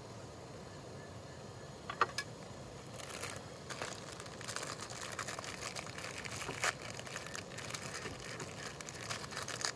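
A small camping gas stove burner hissing steadily, with a plastic instant-noodle packet crinkling and tearing as it is handled and opened from about two seconds in.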